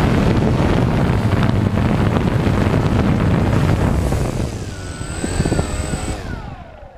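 DJI Phantom quadcopter's motors and propellers buzzing, with heavy wind rush on the onboard microphone. About four and a half seconds in, the motor pitch swoops up and down, then falls, and the noise fades away as the rotors spin down.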